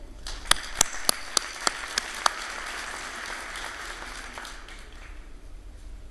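Audience applauding, with several sharp, separate claps standing out in the first two seconds; the applause dies away after about five seconds.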